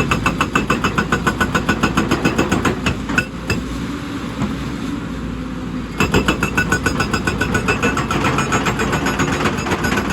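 Excavator-mounted hydraulic rock breaker hammering rock in rapid, even blows, about six a second, with a metallic ring on each blow, over the steady running of the excavator's diesel engine. The hammering stops about three seconds in and starts again about six seconds in.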